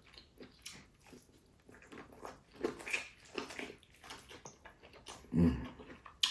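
Close-miked eating: chewing and biting with irregular small crunches and wet mouth clicks, and a short louder low hum about five seconds in.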